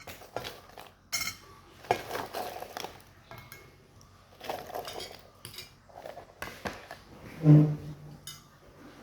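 Cutlery clinking and scraping against a dish of instant noodles during eating, in short irregular bursts, with a brief low hum about seven and a half seconds in.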